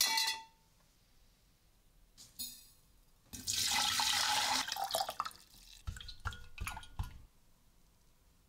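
A steel rod clinks against a glass jar, then water is poured into the jar, splashing and churning for a second or two. A few light knocks and clinks against the glass follow as the rusty hammer head is hung in the water.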